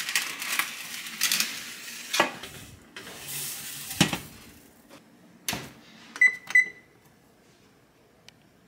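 A metal baking tray scraping and rattling as it slides onto an oven's wire rack, with a clunk about four seconds in and another about a second later. Then a Kenmore oven's touchpad gives two short beeps as its temperature is set.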